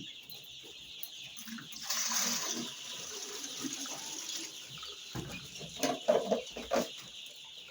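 A brood of week-old chicks peeping continuously as they crowd round the drinkers, with a few short louder sounds between about five and seven seconds in.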